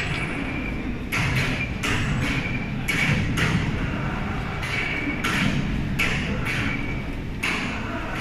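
Steel frame clanking and knocking as it is handled into position. There are about a dozen irregular knocks, several of them followed by a short metallic ring.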